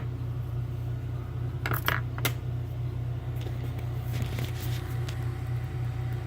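Small metal parts from a gutted Trioving lock clicking and clinking as they are handled: a few sharp clicks about two seconds in, then fainter ticks. A steady low hum runs underneath.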